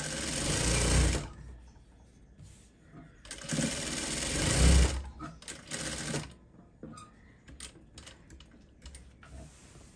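Sewing machine stitching down a neckline facing in short runs: one of about a second at the start, a longer run from about three seconds in, then a couple of brief bursts. A few faint clicks follow as the fabric is handled.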